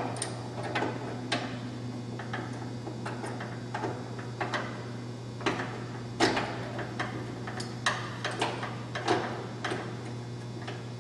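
Irregular light metallic clicks and knocks as a bolt, spacer, washer and nut are fitted by hand through an aluminium cart-rack upright and truck bumper, with a few louder knocks. A steady low hum runs underneath.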